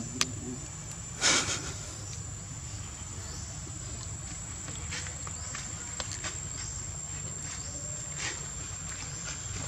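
An insect droning in one steady high tone, with a short, loud, noisy burst about a second in and a few faint clicks scattered later.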